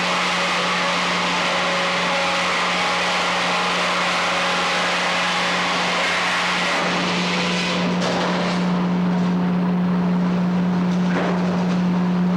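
Frick 00 circular sawmill running, with a steady low drone throughout. A loud hissing rush fades out about seven or eight seconds in, and there is a single sharp knock near the end.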